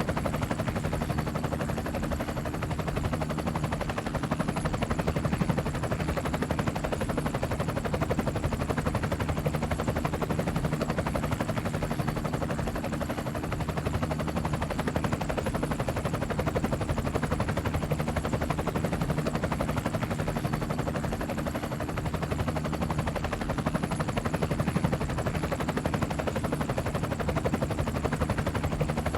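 Helicopter in flight: a steady, rapid chop of the rotor blades over a low, even hum.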